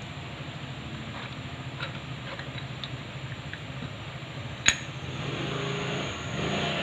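Light metallic ticks and clinks of tools and scooter CVT parts being handled, with one sharp, loud metal clink about two-thirds of the way in, over a steady low hum.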